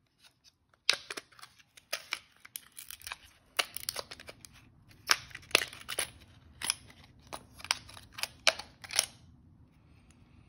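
Stiff clear plastic blister packaging crackling and snapping as a round coin capsule is pushed and peeled out of it by hand: an irregular run of sharp clicks and cracks that stops about nine seconds in.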